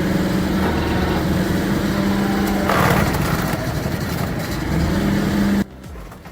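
An engine-driven machine running steadily, with a louder, noisy stretch about three seconds in. It cuts off abruptly near the end.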